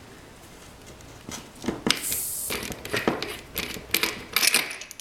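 Metal clicks and knocks from handling a cream whipper and its nitrous oxide charger holder after charging, with a brief high hiss about two seconds in and a denser run of clicks near the end.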